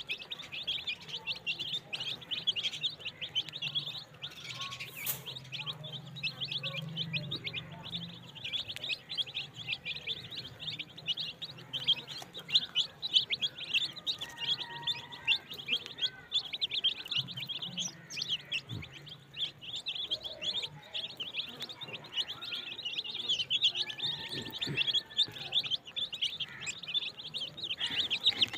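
A flock of dozens of young chicks peeping without pause, many short high peeps overlapping into a constant chorus.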